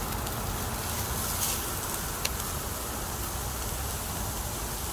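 Chorizo and onions sizzling steadily in oil in a hot cast-iron Dutch oven as the sausage browns and its fat renders. One sharp click a little over two seconds in.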